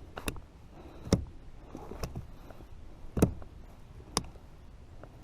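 Scattered sharp knocks and clicks, about five in five seconds, from a freshly caught bass and tackle being handled in a kayak.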